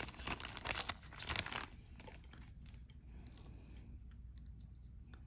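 Small jewelry packaging crinkling and tearing as a pair of stud earrings is unwrapped, in a busy burst that stops after about a second and a half. After that come a few faint light clicks of the earrings being handled.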